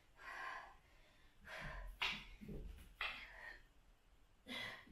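A woman breathing hard and out of breath from exercise: several hard, gasping breaths a second or so apart. There is a sharp tap about two seconds in.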